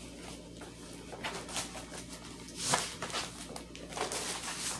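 Plastic wrapping rustling and crinkling as a rolled diamond painting canvas is pulled out and unrolled by hand, in several short bursts, the loudest about three seconds in.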